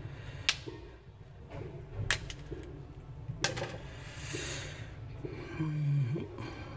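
Hisense U962 phone's plastic housing being handled and pried apart: three sharp clicks about a second and a half apart, then a short scrape. A brief low hum near the end.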